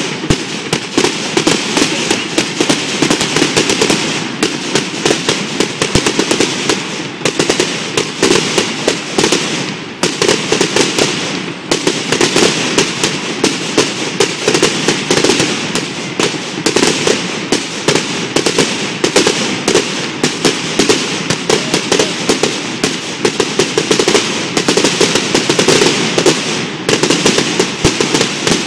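Fireworks going off in a long, dense run of rapid crackling bangs, loud and nearly unbroken throughout.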